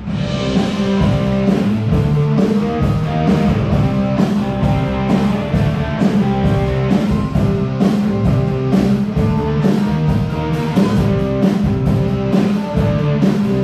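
Live rock band playing in a room: electric guitar over a drum kit keeping a steady beat.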